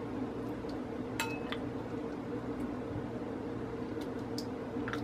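A spoon scooping shrimp cocktail from a serving bowl into a stemmed glass cocktail cup: a few light clinks and taps, one about a second in ringing briefly like glass, over a steady low hum.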